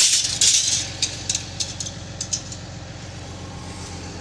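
A steel tape measure being handled and run out across the truck bed, a light metallic rattling with sharp clicks that thin out after about two seconds, over a steady low hum.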